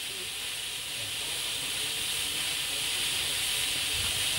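Steady hiss of escaping steam, growing slightly louder.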